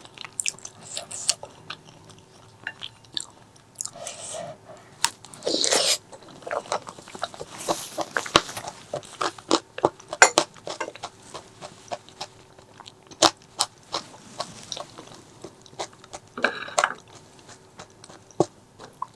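Close-miked eating sounds: chewing and biting with many short, sharp wet mouth clicks, and a few longer noisy stretches between them.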